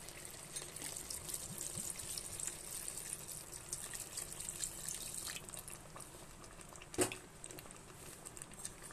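Water poured from a glass into a pressure cooker of spiced chicken curry, a soft trickling splash in the pan. A single knock about seven seconds in.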